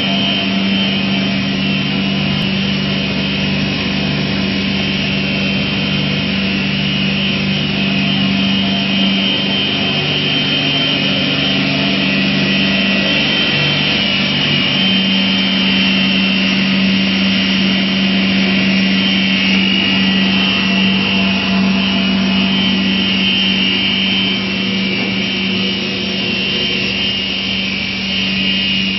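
Continuous PU sandwich panel production line running: a steady machinery drone with a constant low hum and a high, even whine over it.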